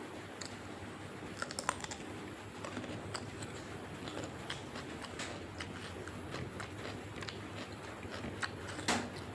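Close-miked eating: chewing, with scattered small mouth clicks and smacks and a louder click near the end.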